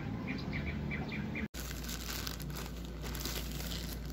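Small birds chirping, a quick run of short repeated chirps about three a second, until a sudden cut about a second and a half in. Then a plastic courier mailer bag crinkling and rustling as hands handle it.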